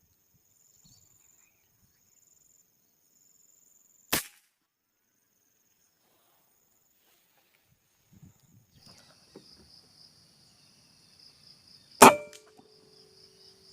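Two air rifle shots about eight seconds apart, each a single sharp crack, the second much louder and followed by a short ringing tone.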